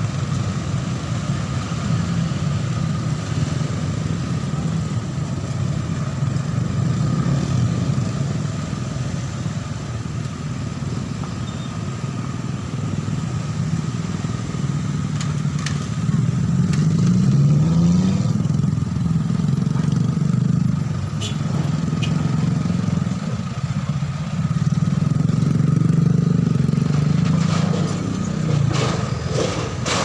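Motorcycles and cars pulling across a railway level crossing: a crowd of small motorcycle engines running and revving as they move off, with a steady high-pitched tone running underneath throughout.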